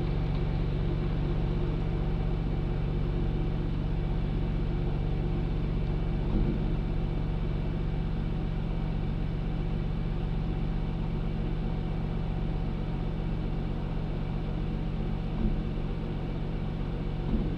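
Toyota 4Runner's engine idling through a Flowmaster Super 40 muffler, heard from inside the cab as a low, steady drone.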